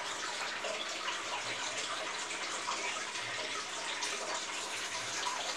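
Aquarium aeration bubbling steadily, a dense stream of fine bubbles rising and breaking at the water surface, with a faint steady hum underneath.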